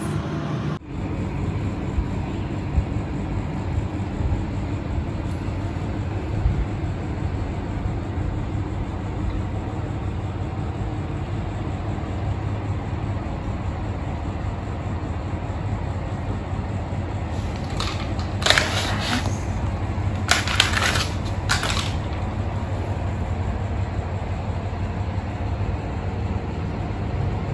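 Steady low hum and hiss, like a fan or air conditioner running, with a few brief handling noises about two-thirds of the way through.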